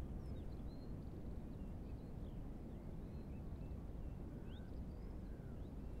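Strong wind buffeting the microphone as a steady low rumble, with faint birdsong of short high chirps and whistles scattered over it.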